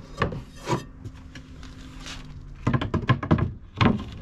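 Wooden knocks and thunks from handling a wooden drawer and sliding out a plywood pull-out board, with a quick run of knocks about three seconds in.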